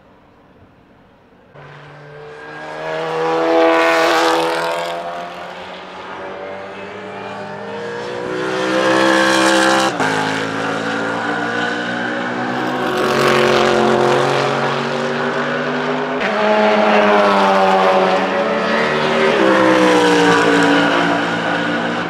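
BMW Z4 GT3's 4.4-litre V8 racing engine running hard, its pitch rising and falling through several accelerations and passes. It comes in about a second and a half in and breaks off abruptly about ten seconds in before carrying on.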